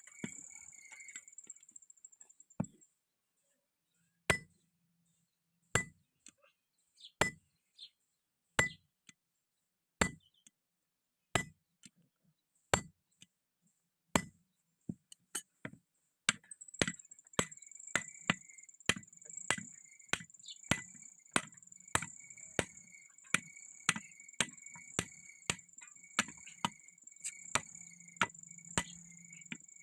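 Hand hammer blows on hot steel at an anvil, forging a round rod into an axe. Single strikes come about every second and a half, then quicken to roughly two every 1.4 seconds from about halfway in, with a steady high-pitched whine behind them.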